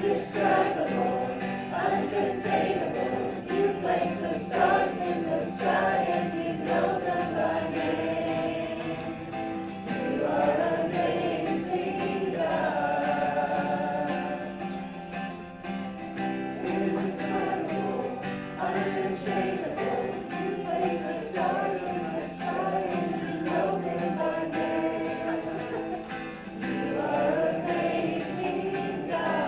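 Congregation singing a worship song together, with acoustic guitar accompaniment.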